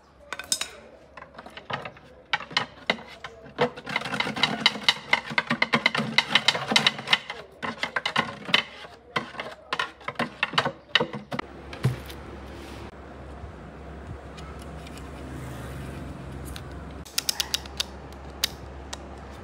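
Loose debris rattling and clicking inside an empty subwoofer cabinet as it is tipped and shaken, with knocks of the box on concrete. About twelve seconds in the rattling stops and a steady low hum takes over, with a few sharp clicks near the end.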